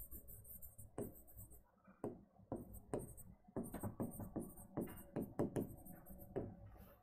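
Stylus writing on an interactive smartboard screen: an irregular string of light taps and short scratches as letters are stroked out, busiest in the second half.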